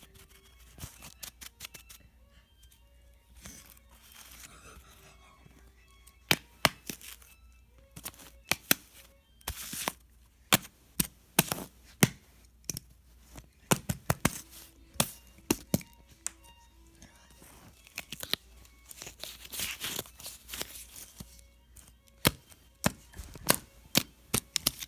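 Pokémon card booster-pack wrappers being crinkled and torn open, giving a long irregular string of sharp crackles and clicks, busiest in the second half. Faint music underneath.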